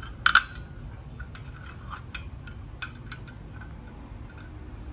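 Metal clicks and clinks as the folding pan supports of a card-type portable camping stove are folded down flat: a sharp double click just after the start is the loudest, followed by scattered lighter clicks.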